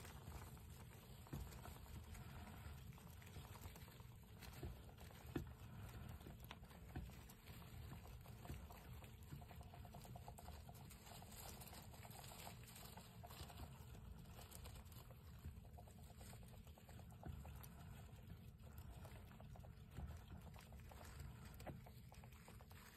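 Faint pattering and small scratchy clicks of mice scurrying about, over a low steady rumble, with one sharper click about five seconds in.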